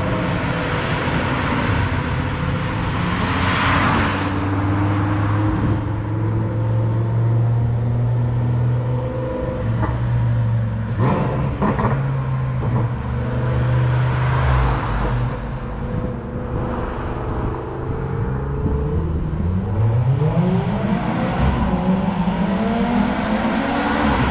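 Car engines and exhausts running as cars drive past, with a swell of passing noise about four seconds in and again about fourteen seconds in. Near the end one car accelerates, its exhaust note rising steadily in pitch.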